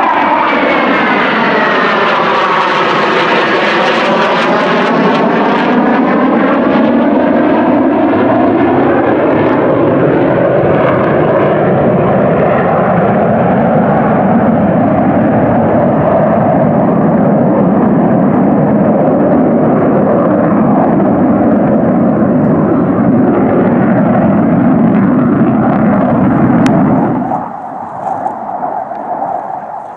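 Jet noise from a pair of Panavia Tornado IDS, each powered by two RB199 turbofans, flying overhead: loud and steady, with pitch bands sweeping downward over the first few seconds as the jets pass. The level drops abruptly near the end.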